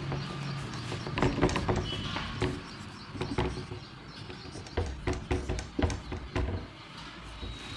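Marker pen writing on a whiteboard: irregular taps and scratches as strokes are drawn, with a brief thin squeak about two seconds in and another near the end.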